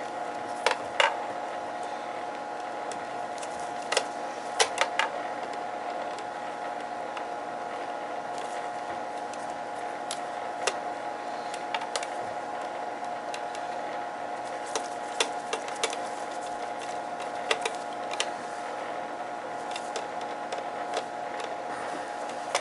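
Small sharp clicks and taps of hands and tools working on boiler control wiring and terminals, coming in short clusters every few seconds over a steady hum.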